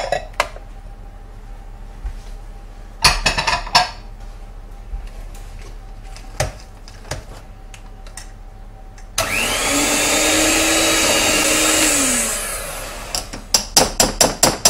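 A handheld electric mixer runs for about three seconds, starting abruptly and winding down at the end, as it mixes a cheese batter in a bowl. Earlier, a few clinks sound against the bowl, and near the end a quick run of clicks follows.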